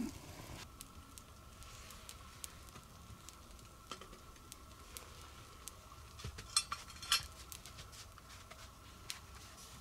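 Wood campfire crackling, with irregular sharp pops and snaps; the loudest two clusters come about six and seven seconds in.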